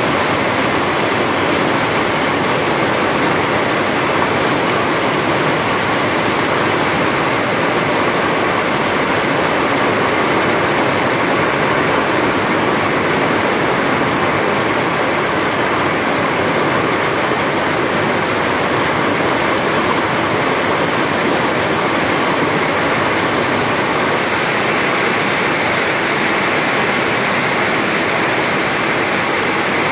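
Steady rain falling on trees and foliage, an even hiss without breaks or pauses.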